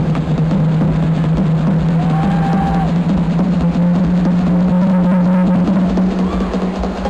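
Techno music played loud over a large festival sound system: a driving kick drum and dense percussion over a held deep bass note, with a few faint short gliding tones higher up.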